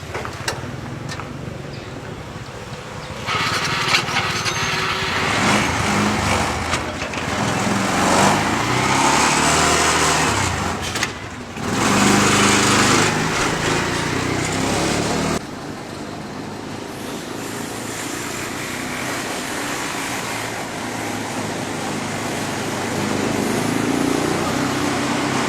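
A small engine running steadily, with voices in the background. The sound changes abruptly a few seconds in and again a little past halfway.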